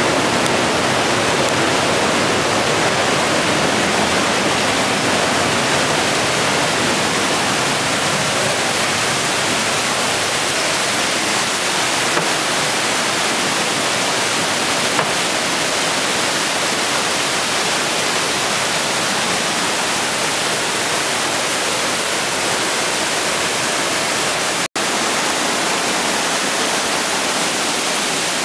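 Mountain torrent rushing and churning over boulders through a narrow rock gorge: a loud, steady, unbroken rush of white water, cut off for a split second about three-quarters of the way through.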